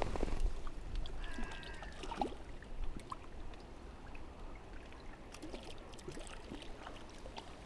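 Small waves lapping against the bank and fishing platform, with wind buffeting the microphone in a gust at the start.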